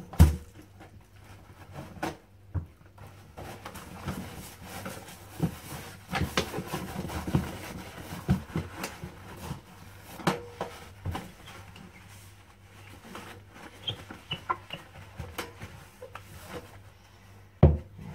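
A cleaning wipe rubbing over a stainless-steel pedal bin and a tiled floor, with scattered light knocks and clatters of the bin's metal lid and body. There is a sharp knock just after the start and another near the end.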